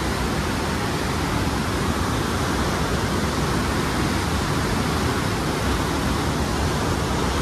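Steady rush of floodwater pouring through the barrage gates.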